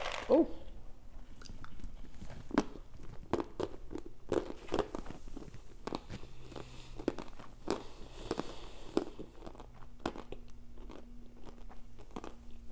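Chewing a mouthful of hard, dry starch chunks, with irregular sharp crunches as they break between the teeth.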